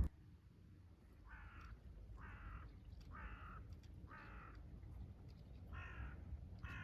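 A crow cawing: about six short, harsh caws roughly a second apart, with a short pause before the last two.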